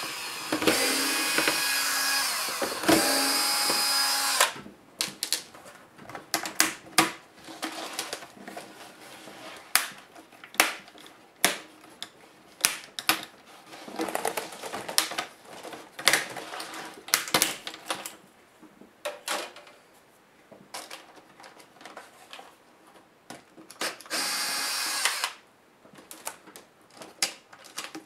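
Cordless electric screwdriver whirring in short runs, three in the first few seconds and one more near the end, backing out screen-bezel screws from a laptop display. In between, sharp clicks and snaps of plastic as the bezel is handled and lifted off the LCD panel.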